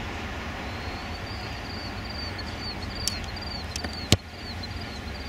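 A rugby ball kicked off a tee in a place kick: one sharp impact of the boot on the ball about four seconds in.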